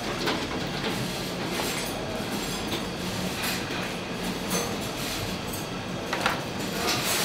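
Steady rushing kitchen noise with a few sharp metal clinks as a wire skimmer knocks against a large cooking pot and a metal tray while boiled meat is lifted out of its broth.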